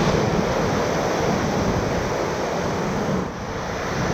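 Whitewater rapids rushing steadily around a raft, a continuous churning-water noise that dips briefly about three seconds in.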